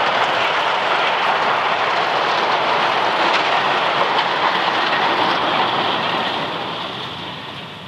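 Narrow-gauge slate and goods wagons rolling past on the rails, a steady clatter of wheels that fades away over the last two seconds as the end of the train passes.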